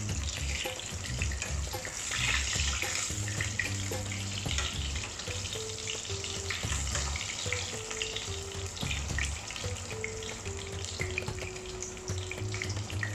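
Eggplant slices sizzling in hot oil in a frying pan, with occasional clicks of metal tongs as the slices are turned.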